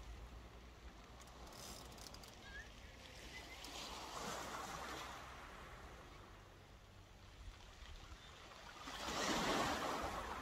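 Small waves breaking and washing up a shingle beach: a gentle wash about four seconds in, then a louder one near the end.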